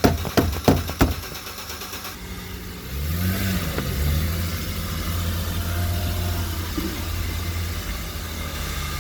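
Rapid knocking, about three blows a second, that stops about a second in: the gas tank being tapped to get a sticking fuel pump running. About three seconds in the Mercedes E350's 3.5-litre V6 fires, flares up briefly and settles into a steady idle.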